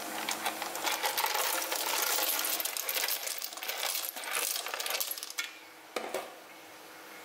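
Spiny sea snail shells tumbling from a bowl into a steel pot of boiling water, a dense rattling clatter of shells against each other and the pot that thins out after about five seconds, followed by a single knock.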